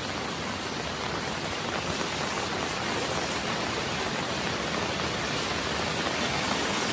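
Flash-flood water rushing in a torrent along a street: a steady, even rush of water that grows a little louder towards the end.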